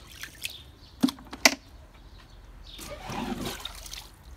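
Plastic buckets being handled on the floor of an emptied above-ground pool: two sharp knocks about half a second apart, then a softer splashing scrape as leftover rainwater is scooped up off the liner.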